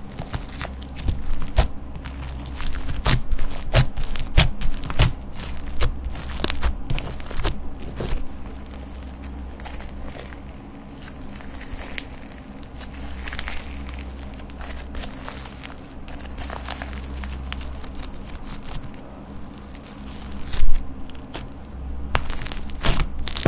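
Crunchy bead-filled slime being stretched, folded and pressed by hand, giving quick sticky clicks, pops and crackles. They come in dense runs, thin out in the middle, and one loud pop stands out near the end. A steady low hum sits underneath.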